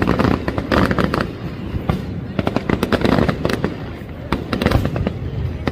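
Irregular clusters of rapid sharp cracks and pops, coming again and again.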